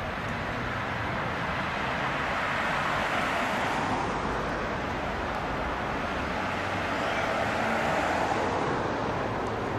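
Electric heritage tram running along a street track, heard from aboard: a steady rumble of wheels and motor mixed with road traffic, swelling a little twice.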